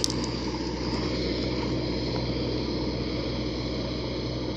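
Self-propelled grape harvester's diesel engine running steadily as the machine drives off, a low even hum easing off slightly as it moves away.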